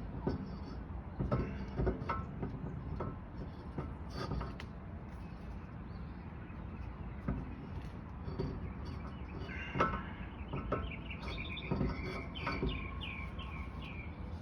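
Scattered knocks and clunks of a car wheel being handled and lined up on the hub, over a steady low background noise. Near the end a bird chirps a quick run of short high notes.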